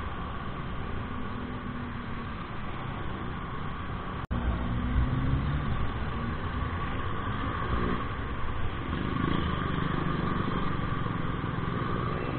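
Wind rush and engine hum of a Honda Click 125i scooter being ridden in traffic, with a steady tone running through it. The sound drops out for an instant about four seconds in.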